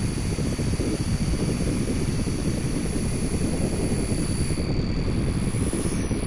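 Dense, steady low rumbling electronic noise drone from a live laptop sound-art performance, with a thin, steady high whine above it.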